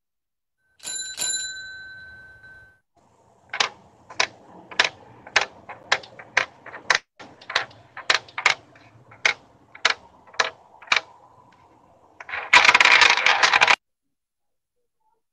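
A bicycle bell rings about a second in, its ring fading away. Then comes a run of about fifteen sharp clacks, roughly two a second, then a loud noisy burst lasting about a second and a half.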